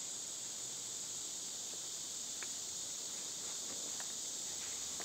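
Steady high-pitched chorus of insects in late-summer woods, with a couple of faint ticks about halfway through and near the end.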